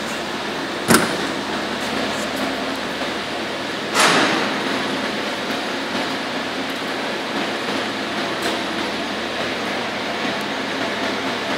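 Steady running noise of factory machinery, with a sharp metallic clank about a second in and a louder clank that rings briefly about four seconds in.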